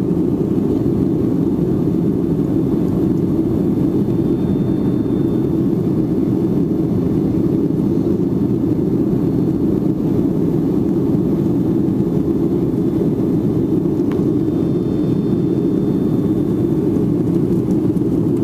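Steady loud roar of a Boeing 757-300's jet engines and airflow heard inside the cabin as the airliner climbs out after takeoff.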